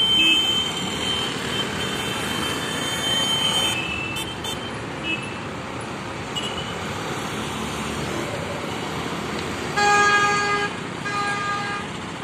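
Street traffic, with engines of passing motorcycles and other vehicles running. A vehicle horn honks twice near the end, a longer toot and then a shorter one.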